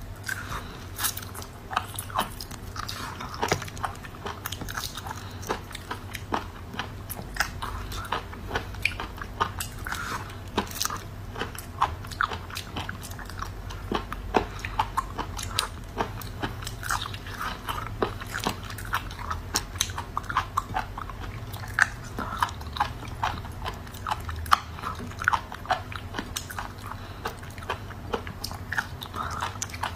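Raw pickled mud snails being eaten by hand: irregular sucking and chewing with many short, sharp clicks, over a steady low hum.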